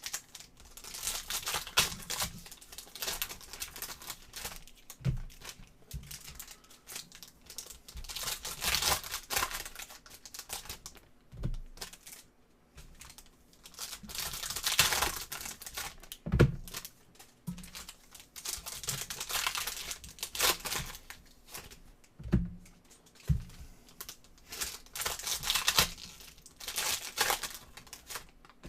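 Sealed trading-card packs being opened: wrappers crinkling and tearing in irregular bursts, with a few soft knocks from the cards and box being handled.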